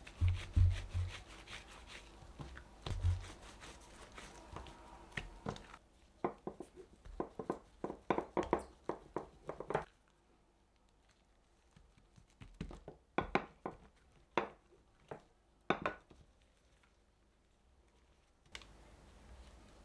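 Kitchen handling sounds: packaging crinkling and tearing, with scattered clicks and taps of utensils and dishes, including a quick run of taps in the middle. The background changes abruptly a few times between short cuts.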